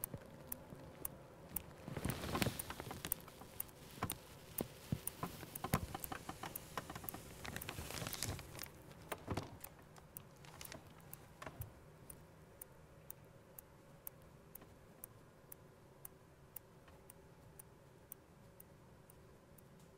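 Quiet handling noises on a wooden table: small irregular taps, knocks and rustles as hands move plastic and a bunch of herbs. They are busiest in the first half, then thin out to faint, scattered ticks.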